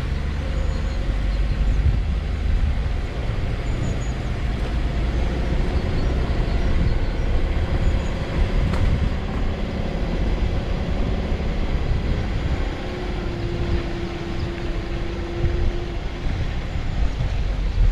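A car driving slowly over a rough forest dirt track: engine running with a steady low rumble and the jolting noise of the tyres and body over the ruts. A steady hum joins for a few seconds in the second half.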